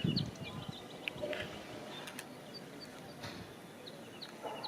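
Outdoor ambience: a brief low rumble on the microphone at the start, then scattered short high bird chirps over a faint steady background hiss.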